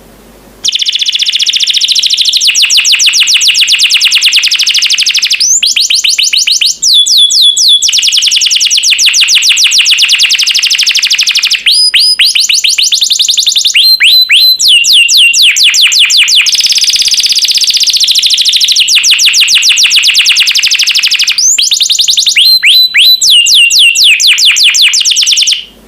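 Canary singing a long, loud song of fast rolling trills of rapid repeated notes, broken by quick sweeping whistles. The song starts just under a second in and stops just before the end.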